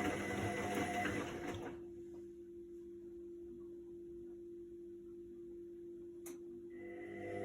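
Indesit front-loading washing machine on a quick wash: the drum motor runs, stops about two seconds in, leaving only a faint steady hum, and starts again near the end. A single sharp click comes just before the motor restarts. The drum is pausing between turns of the wash.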